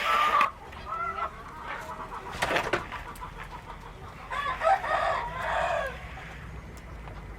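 Chickens clucking and calling in short bursts, loudest from about four and a half to six seconds in.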